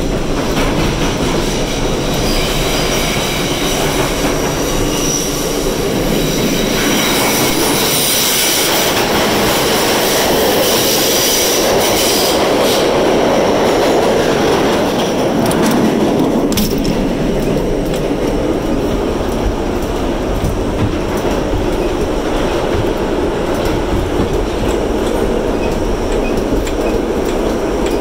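Subway train running at speed, heard from inside the car: a loud, steady rumble and rattle of wheels on track. A high squeal of the wheels rises over it for several seconds in the first half, and there is a sharp click a little past the middle.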